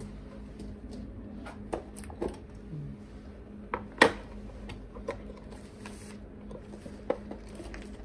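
Scattered clicks and clinks of small metal lab parts being handled on a bench, with one sharp knock about four seconds in as a metal coaxial sample holder is set down. A steady low hum runs underneath.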